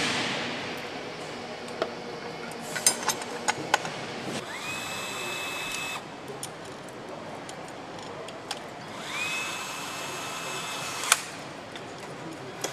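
A power driver fastening parts on an engine. Twice it spins up quickly to a steady high whine, runs for a second or two and stops abruptly. Sharp metallic clinks of parts and tools come before and between the runs.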